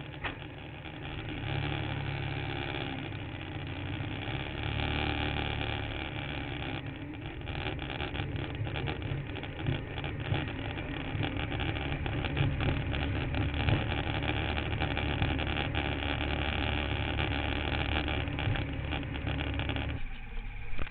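Kart cross engine running under way, heard from the onboard camera, with rattles and knocks from the chassis over rough ground. The engine sound drops away near the end.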